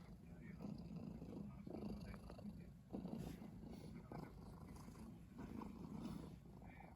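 Calico cat purring contentedly while being stroked: a faint, steady purr that swells roughly once a second.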